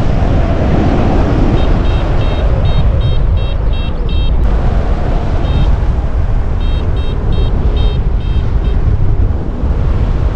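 Wind rushing over the microphone in flight under a paraglider, with a variometer beeping about three times a second in two runs, a short pause between them. Steady beeping like this is the vario's climb tone, the sign of flying in rising air.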